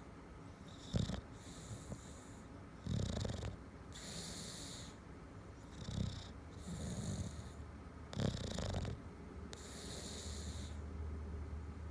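Bulldog snoring in its sleep: a short rough snort followed by a longer wheezy hiss, repeating every two to three seconds. This kind of snoring is typical of a bulldog's short-nosed airway.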